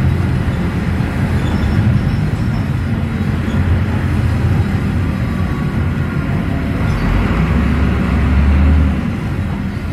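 Volvo D9B six-cylinder diesel and Voith automatic driveline of an articulated bus under way, heard from inside the cabin as a steady low drone. A deeper drone swells about seven seconds in and eases off near the end.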